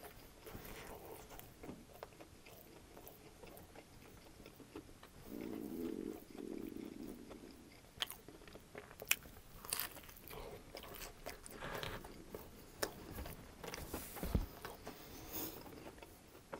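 Close-miked eating sounds of a person chewing a tortilla wrap of panko-crusted crispy chicken and bacon. Another bite into the wrap comes about eight seconds in, followed by crunchy chewing with scattered sharp clicks.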